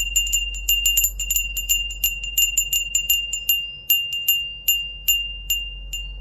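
A small hand bell rung rapidly, its clapper striking about five times a second at first and more slowly toward the end, each strike a bright single-pitched ring.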